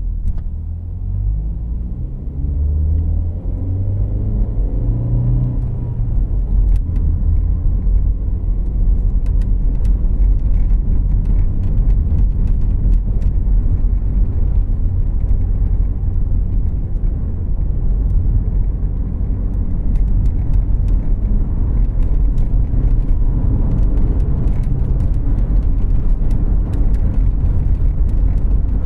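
Inside the cabin of a 2014 Volkswagen Jetta Clásico on the move: engine pitch rises over the first few seconds as the car accelerates, then settles into a steady low engine and road rumble while cruising.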